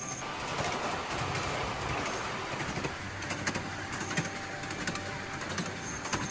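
Ride-on miniature park train running along its narrow-gauge track: a steady rumble with scattered sharp clicks from the wheels and cars.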